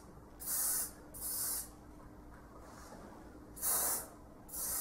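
Aerosol hairspray can sprayed in short bursts close to the hair to set the bobby-pinned sections: four hissing puffs of about half a second each, two in quick succession near the start and two more near the end.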